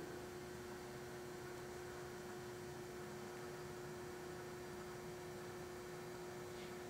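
1977 Ikeda RM-1375 radial arm drill lowering its arm down the column under power: a faint, steady hum at one pitch.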